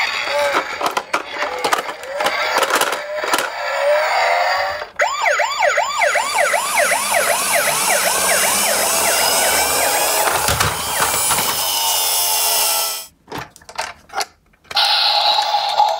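Toy garbage truck's electronic sound unit playing a siren effect: fast up-and-down wails, about four a second, that slowly stretch into longer sweeps. Before it come clicks and knocks of the plastic toy being handled, and near the end a few more clicks.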